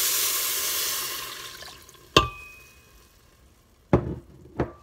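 Milk poured from a glass measuring cup into the hot stainless-steel inner pot of an Instant Pot onto sautéed steel-cut oats, a steady hiss as the milk hits the hot pot, fading out about two seconds in. Then a sharp clink with a brief ring, and two duller knocks near the end.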